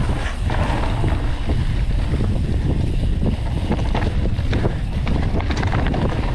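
Mountain bike rolling fast down a dirt singletrack, with wind rumbling on the camera's microphone, tyre noise on the dirt, and scattered knocks and rattles from the bike going over bumps.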